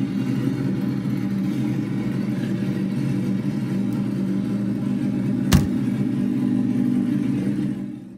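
Loud car exhaust running with a steady deep rumble, with one sharp click about five and a half seconds in; the rumble fades out near the end.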